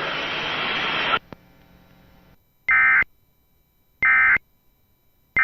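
Static hiss from a weather radio receiver that cuts off about a second in. Then the Emergency Alert System end-of-message data bursts: short, equal buzzing bursts of two-tone digital code, two of them complete and a third just starting at the end, marking the end of the alert message.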